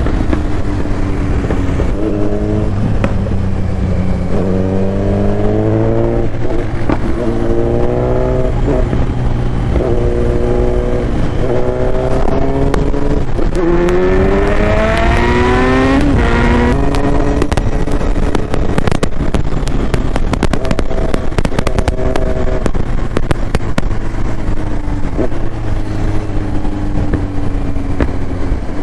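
Kawasaki Z900's inline-four with an Akrapovic exhaust under way on the road, revving up and dropping back through several gear changes. The biggest pull is about halfway through, then it settles and slows, with wind rumbling on the microphone.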